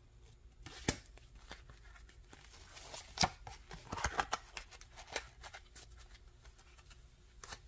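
Pokémon trading cards handled in gloved hands: soft scattered rustles and clicks as the cards are slid and flipped, with a few sharper taps near 1, 3 and 4 seconds in.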